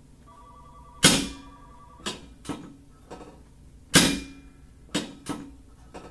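Thompson chiropractic drop table sections snapping down under the adjuster's thrusts: two loud, sharp bangs, about a second and about four seconds in, with several lighter knocks between and after them. A faint steady high ring sounds under the knocks.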